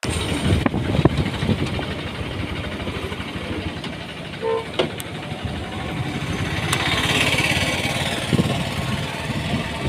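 Roadside traffic noise: vehicle and motorcycle engines running, with a few sharp knocks and one short beep about four and a half seconds in.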